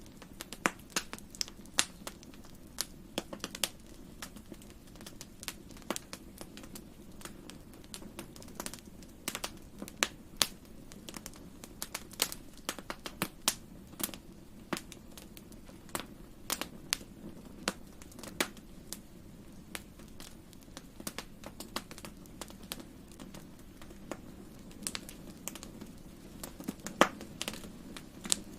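Wood fire crackling in a fireplace: irregular sharp pops and snaps, several a second, over a soft, steady low bed of sound, with one of the loudest pops near the end.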